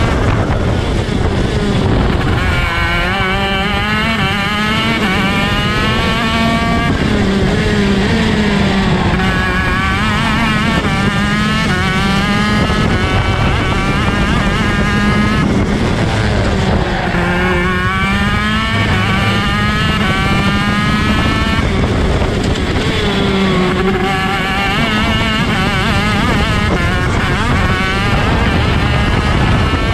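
Onboard sound of a ROK shifter kart's 125 cc two-stroke engine at race pace, its note climbing through the revs and falling back again and again as it works through the gears and into the corners.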